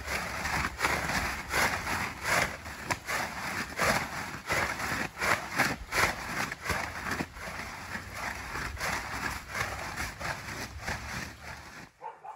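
Blue plastic tarp crinkling and flapping as it is waved around over a horse's head, in irregular swishes about one or two a second; it stops abruptly near the end.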